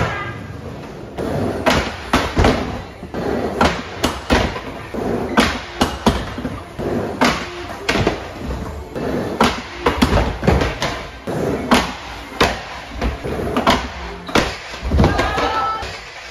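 Skateboard hitting the ramp: a long series of sharp slaps and clacks from the deck and wheels striking the riding surface, over background music.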